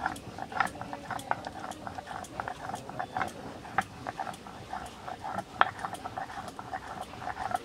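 Duck curry cooking in a covered pot on a wood-fired clay stove: dense, irregular crackling and popping.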